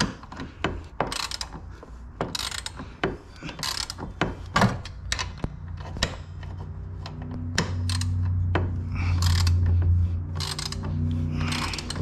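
Ratchet wrench turning a 17 mm seat-belt anchor bolt: repeated short clicking strokes, with a steady low hum growing in from about halfway.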